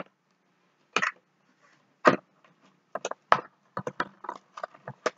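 Topps Chrome trading card packs and cards being handled: scattered short crinkles and taps, coming more often in the last two seconds.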